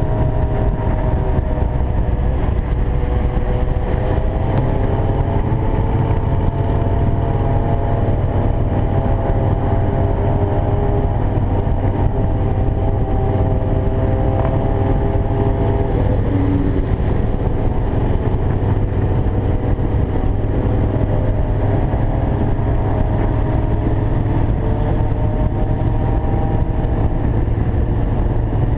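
A group of motorcycle engines running together: a steady, loud, low drone with several engine notes overlapping and drifting slowly in pitch.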